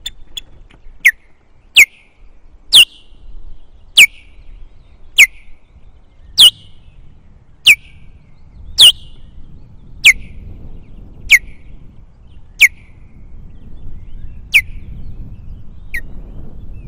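Osprey alarm calls at an intruder: a series of about a dozen loud, sharp whistled notes, each falling in pitch, roughly one a second.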